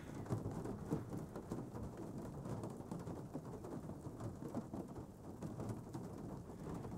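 Water drops pattering steadily on the outside of a car, heard muffled from inside the cabin as a dense, even patter.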